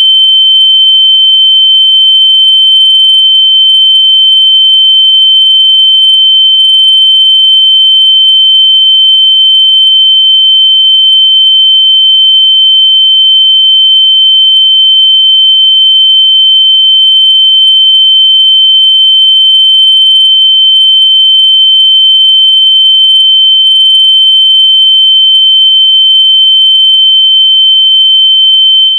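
Very loud, continuous high-pitched electronic tone held at one steady pitch, a locator noise meant to be played through lost AirPods so they can be found by ear.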